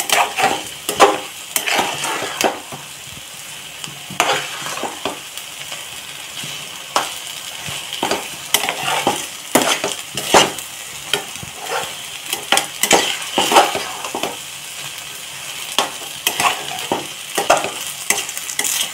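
A metal spatula stirs and scrapes vermicelli upma around a metal pan in irregular strokes, with knocks against the pan, over a steady sizzle of frying as the dish finishes cooking.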